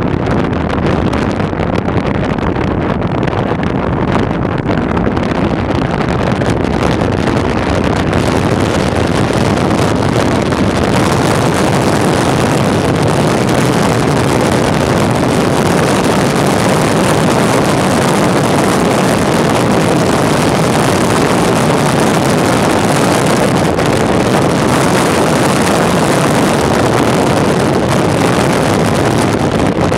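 Steady rushing noise of wind buffeting the camera microphone, mixed with wheels rolling on asphalt at speed, growing a little louder about eight seconds in.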